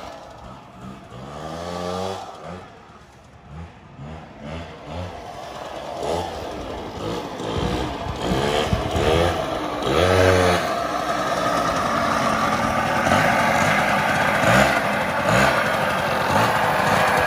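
Suzuki LT80 quad's small two-stroke single-cylinder engine being ridden, revving up and down in short pulls with the throttle. It grows much louder as the quad comes close, and stays loud through the second half.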